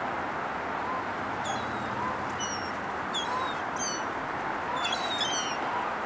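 Gulls calling as they wheel overhead: short, high calls repeated every second or so, several close together about five seconds in, over a steady background hiss.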